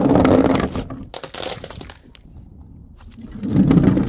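A batch of small round objects rolling down a wooden ramp with a low rumble, then a quick cluster of sharp cracks as they break on the tiles about a second in. Near the end a second rumble builds as paint-filled balloons roll down the same ramp.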